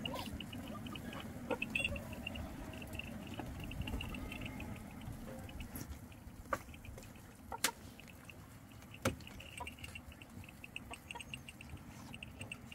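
A bird chirping in fast, high trills that come and go, over quiet outdoor background, with three sharp clicks around the middle.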